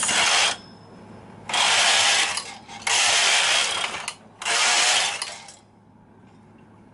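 Silver Reed SK160 mid-gauge knitting machine carriage pushed back and forth across the needle bed, knitting rows of a gauge swatch: four passes of about a second each with short pauses between, then it stops.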